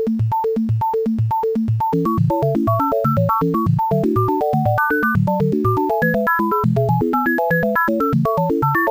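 Critter & Guitari Pocket Piano synthesizer playing a quick tune of short, clipped notes, low bass notes alternating with higher melody notes.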